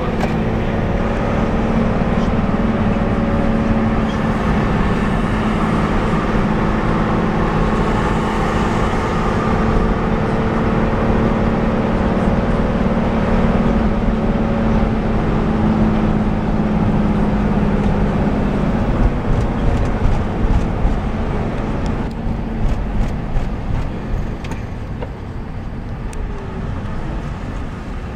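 Bus engine and road noise heard from inside the cabin while driving, a steady drone. Near the end it gets quieter as the bus slows to a stop, with a few sharp knocks.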